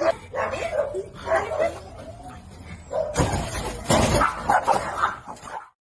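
A dog barking and yipping in short repeated calls, with a loud burst of noise about three seconds in; the sound cuts off just before the end.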